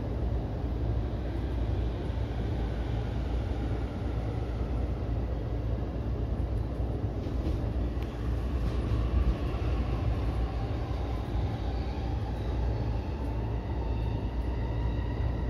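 E233-series electric commuter train running on the line, heard from inside the front car: a steady rumble of wheels on rail. Over the last few seconds an electric motor whine rises slowly in pitch.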